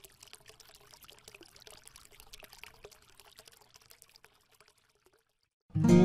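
Faint trickling, crackling sound like liquid being poured, made of many tiny clicks. It stops about five seconds in, and loud acoustic guitar music starts near the end.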